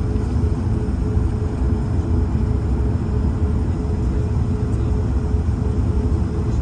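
Steady drone of an Airbus A220-300's jet engines heard from inside the cabin: a continuous low rumble with a steady hum on top.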